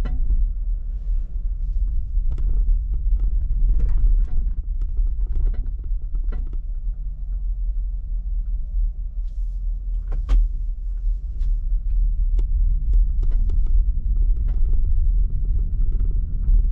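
Low rumble with a series of sharp knocks, the loudest about ten seconds in: a 2019 Chevrolet Bolt EV's drivetrain clunking as it shifts from reverse to forward.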